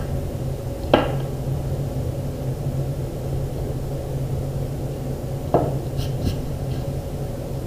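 Steady low hum with two sharp taps, about a second in and about two seconds before the end, as a pencil and hands work on a sheet of drawing paper on a board. A few faint light ticks follow the second tap.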